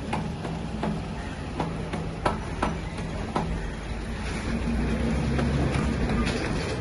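Diesel generator set being hand-cranked: a handful of sharp metallic clanks in the first few seconds over a low engine hum, which grows louder and steadier from about halfway through.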